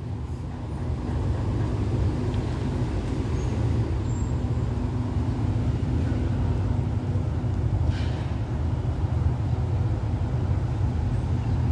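Stationary diesel passenger train idling: a steady low hum with a constant tone. A short, sharper sound comes about eight seconds in.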